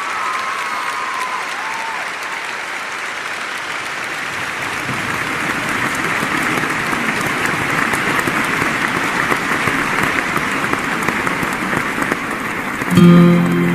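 Large theatre audience applauding, swelling slightly in loudness. About a second before the end, a guitar begins playing as the applause continues.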